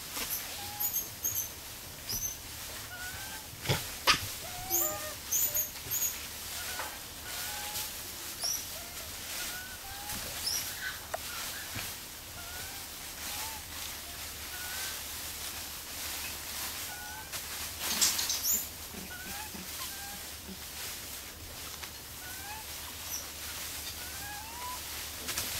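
Animal calls: short rising chirps repeating about once a second, with higher-pitched twittering now and then. A sharp knock comes about four seconds in, and a brief rustle about eighteen seconds in.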